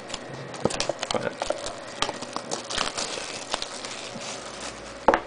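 Cardboard trading-card box and wrapper being handled and opened by hand: a run of light taps, clicks and rustles.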